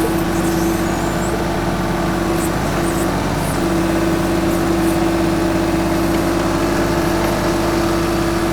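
TYM 2515H compact tractor's diesel engine running steadily while working the BH150 backhoe, with a steady whine over it that briefly falls away about three seconds in.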